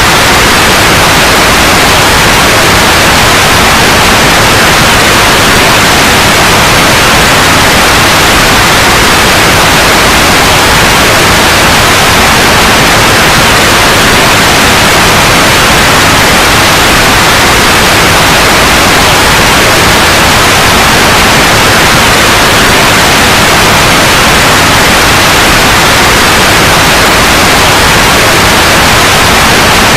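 Loud, steady white noise: a continuous even hiss that does not change.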